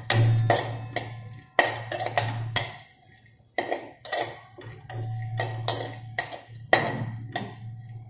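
Steel spatula scraping and knocking against a stainless steel kadhai as chopped almonds, cashews and pistachios are stirred and sautéed in a little ghee. The scrapes and taps come irregularly, one or two a second, each with a brief metallic ring.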